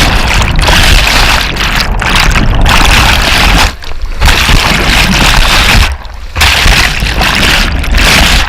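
Whitewater rapids rushing and splashing loudly around a kayak, close to the microphone, with two brief dips in the noise about four and six seconds in.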